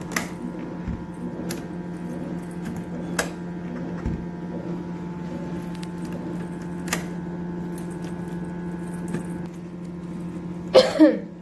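A key working in a doorknob lock: a few sharp metallic clicks, with keys jangling on their ring, over a steady hum. A louder scrape comes near the end.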